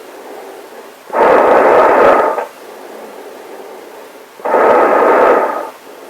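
Breathing through a gas mask respirator: a loud rushing breath about a second long comes twice, roughly three seconds apart, with a faint hiss between.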